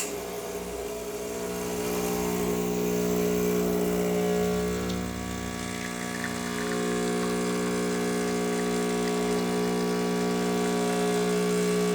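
A Rancilio Silvia espresso machine's vibratory pump buzzing steadily while pulling an espresso shot.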